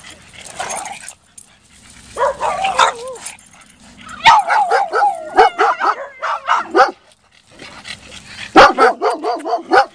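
Dog barking and yipping in play, in quick strings of short, high, repeated calls: a brief burst a little after two seconds in, a long rapid run from about four to seven seconds, and another run near the end.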